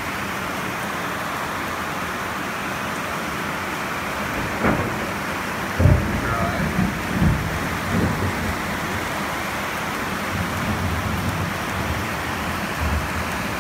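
Steady rain hissing on the metal roof and windows of a converted school bus, heard from inside. A cluster of low thumps and rumbles rises over it around the middle.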